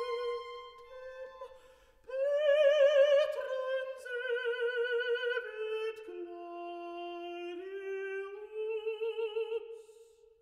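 Background classical music: a slow melody of long held notes with vibrato, swelling louder about two seconds in and fading out near the end.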